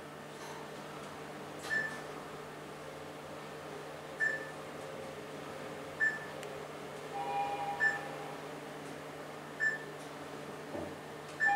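Mitsubishi traction elevator car travelling with a steady low hum, while short high beeps sound about every two seconds. A brief lower tone comes about seven seconds in, and a louder chime begins right at the end.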